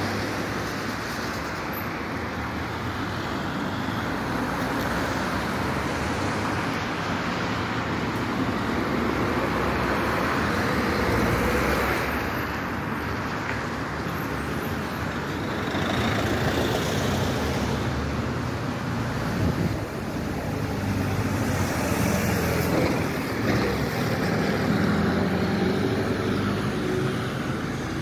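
Street traffic: a steady hum of road vehicles going by, swelling several times as vehicles pass close.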